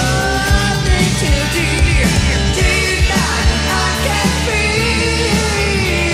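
1980s hard rock/AOR demo recording playing: a sung vocal line and guitar with pitch bends over a steady drum-machine beat, the guitar sound typical of a Rockman amp.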